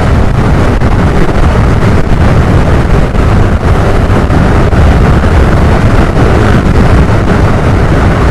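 Loud, steady wind rumble on the microphone of a Suzuki scooter running at highway speed, about 75 km/h, with its engine and tyre noise blended underneath.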